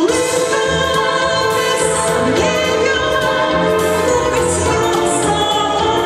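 A woman singing into a handheld microphone over instrumental accompaniment, holding and sliding between long notes.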